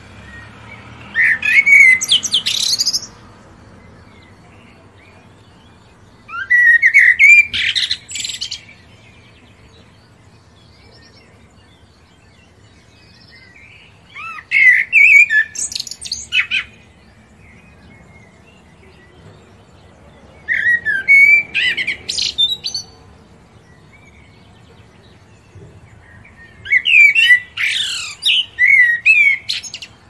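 A songbird singing short phrases of quick high chirping notes, five phrases a few seconds apart.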